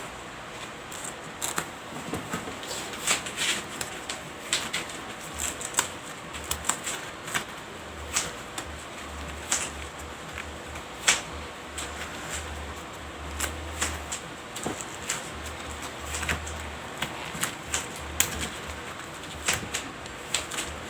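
Electrical tape being peeled off the roll and wrapped around a freshly cut live wire end to insulate it: irregular crackling and clicking, with a low hum coming and going in the middle.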